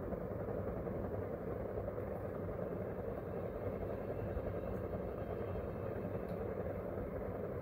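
Wooden spatula stirring soaked sago pearls and potato in a non-stick frying pan, a few faint scrapes over a steady low rushing noise.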